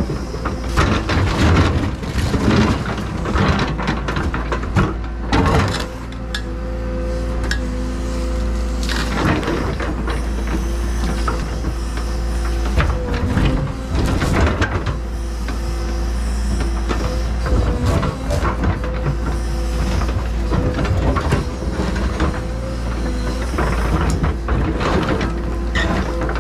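Excavator running while its bucket crushes an old septic tank, with heavy cracking and crunching knocks as the tank breaks up, most of them in the first few seconds and a few more later.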